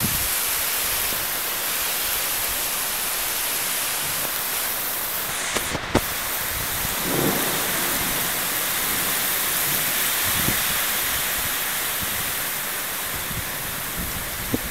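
Heavy cloudburst rain pouring down in a steady, even hiss.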